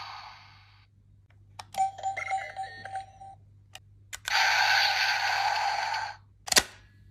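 DX Friendship Burst Ghost Eyecon toy being handled and triggered: plastic clicks, a short electronic chime with a steady beep, then a loud electronic sound effect lasting about two seconds from the toy's speaker, and another sharp click near the end.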